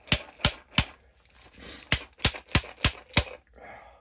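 Glass jar of colonized grain spawn slapped hard against a gloved palm to break up the mycelium, sharp smacks about three a second in two runs with a short pause after the first second. Loose grain rustles inside the jar between the runs.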